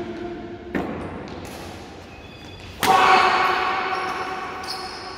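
Badminton rackets striking a shuttlecock in a rally: two sharp hits about two seconds apart, the second louder, each ringing on in a large hall.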